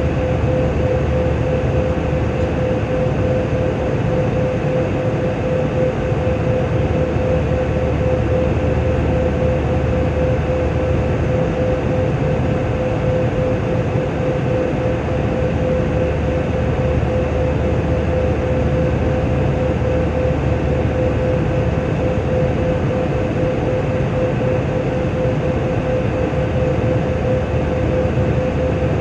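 Airbus A320 cabin noise: a steady low rumble with a single steady whine held on top, unchanging throughout.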